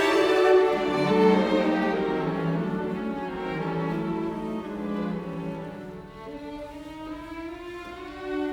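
Background music on bowed strings, playing slow held notes that grow quieter after the first couple of seconds.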